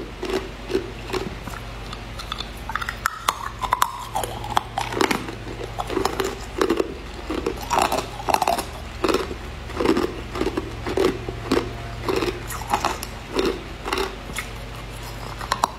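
Ice being bitten and crunched between the teeth: sharp cracks as a cube is bitten, then a steady chewing crunch about twice a second.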